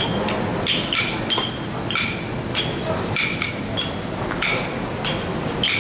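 Short wooden sticks knocked repeatedly against a hard floor, about two knocks a second in an uneven rhythm, as in hoeing or tilling; each knock gives a short, clear ring.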